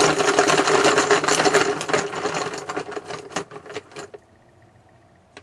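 Hand-mixing the team picks for a random draw: a rapid, dense clicking clatter that tapers off and stops about four seconds in.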